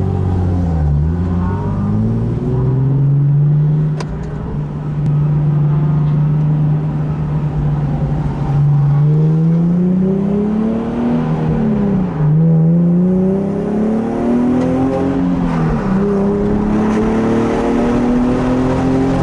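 Nissan 370Z's 3.7-litre V6 engine heard from the car. It holds a steady pitch for several seconds, then pulls hard through the gears: the pitch climbs, drops at an upshift about eleven seconds in and another about fifteen seconds in, and climbs again near the end.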